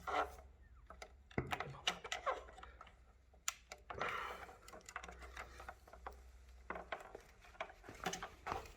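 Faint handling noises of work on an electric unicycle's motor wiring: scattered light clicks and taps, with a short scraping rustle about four seconds in.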